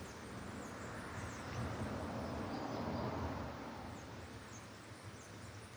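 Outdoor nature ambience: a steady noisy background with faint, scattered bird chirps high above it, easing off slightly near the end.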